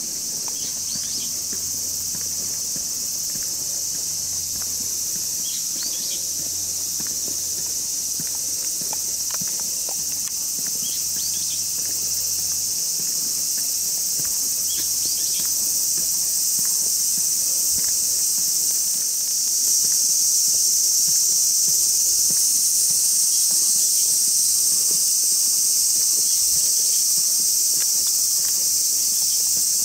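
A steady, high-pitched chorus of summer insects, growing louder and stepping up sharply about two-thirds of the way through.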